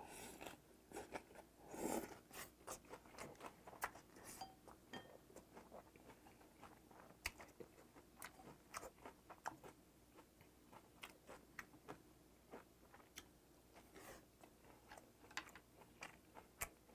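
Quiet, close-miked chewing of spicy raw gizzard shad salad: irregular soft wet clicks and crunches. They are busiest in the first few seconds and thin out to scattered clicks later.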